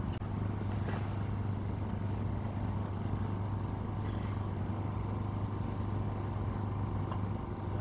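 Engine-driven generator running steadily, a low even hum that does not change.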